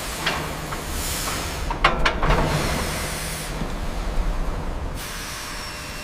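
Steam hissing steadily from the locomotive's pressure lines, with a few sharp metallic clicks about two seconds in.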